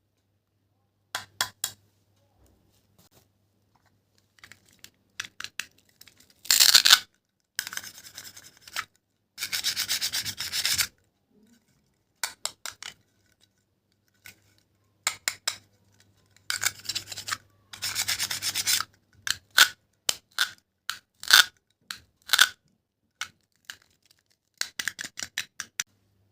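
Dry scratchy rubbing and scraping, in irregular strokes: some short and clicky, some lasting about a second, with silent gaps between them.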